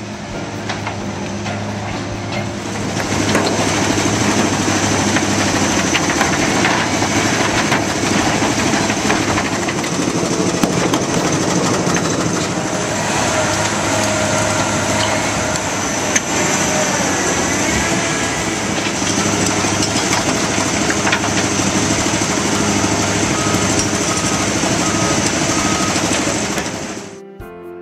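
Industrial shredding and screening plant running: an EDGE shredder, Fintec 640 screen and picking-line conveyors together, a steady low machine hum under a dense clattering rush of material. It gets louder about three seconds in and cuts off suddenly near the end.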